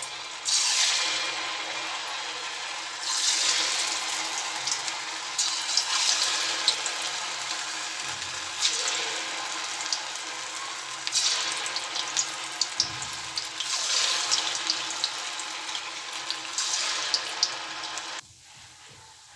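Hot oil sizzling as small dollops of poha vada batter are dropped in for deep-frying. The sizzle swells about every two to three seconds as each new piece goes in, and falls much quieter suddenly near the end.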